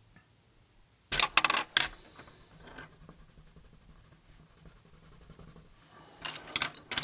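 Wooden Prismacolor colored pencils clattering against one another, as when a pencil is picked out of the set. It comes as two short rattling bursts, one about a second in and one near the end.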